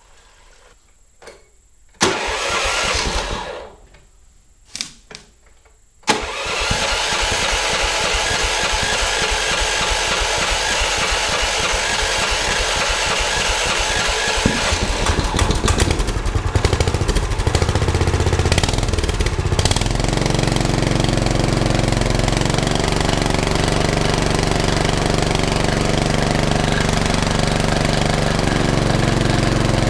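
A Predator 420 cc single-cylinder four-stroke engine being started after its carburettor was cleaned. A short first try about two seconds in doesn't keep it going. It catches about six seconds in, runs somewhat unevenly for a while as the controls are worked, and settles into a steady run about twenty seconds in.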